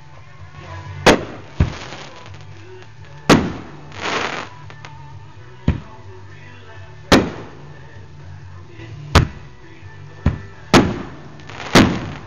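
Aerial fireworks bursting overhead: about ten sharp bangs at irregular intervals, each with a short echoing tail, one followed by a brief hiss.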